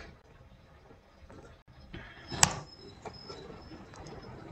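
Faint clicks from a computer keyboard during code editing, with one sharper, louder click about two and a half seconds in.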